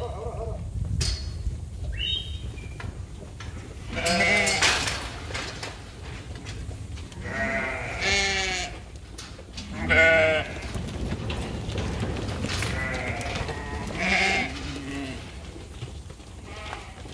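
A flock of sheep bleating while crowded in a pen, with several separate wavering bleats spread through and the loudest about ten seconds in.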